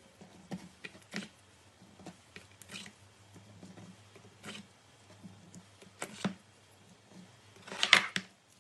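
Crunchy slime being squeezed and poked by hand: scattered small crackles and pops, with a louder crunch about six seconds in and a louder crackling squish near the end.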